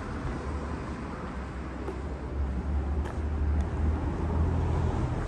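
Road traffic on a city street: the low rumble of a motor vehicle grows louder over the second half, over general street noise.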